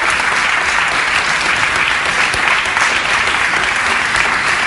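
Audience applauding, a dense, steady clapping that keeps up without fading.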